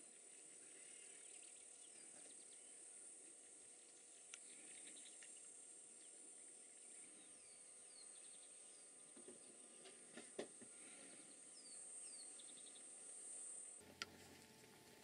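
Faint field ambience: a steady high-pitched insect drone, with a few short falling bird chirps and a couple of soft clicks. The drone cuts off suddenly near the end.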